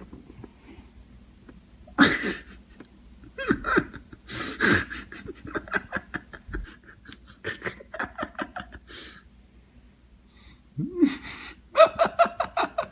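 People's voices laughing and exclaiming in bursts, with breathy panting between, and sliding vocal cries at a few points.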